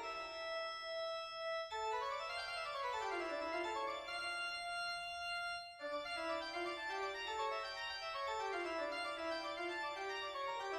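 Keyboard music, organ-like, playing quick runs of notes that fall and rise again and again, with a few held notes near the middle.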